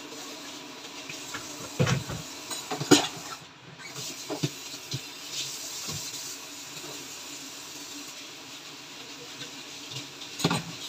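Kitchen tap running into a stainless-steel sink while dishes are rinsed, with several knocks and clatters of dishes being handled, the loudest about three seconds in.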